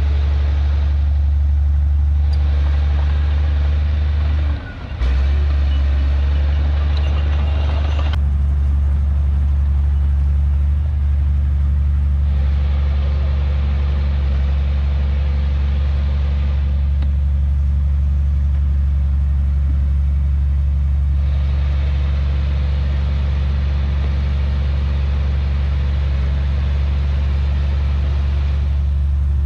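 Heavy diesel engine of earthmoving machinery running steadily with a deep low drone, with a brief drop in level a little under five seconds in.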